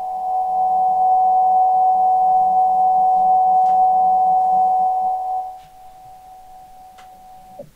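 DIY CNC mill's axis drive moving the head at a steady feed, giving a steady whine. The whine gets quieter after about five seconds and drops in pitch as the axis stops near the end. A few faint ticks sound over it.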